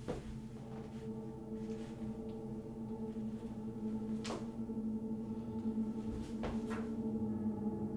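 Sustained droning horror-film score of held, gong-like tones that swell slowly louder, with a few brief swishing accents, the clearest about four seconds in and twice around six and a half seconds in.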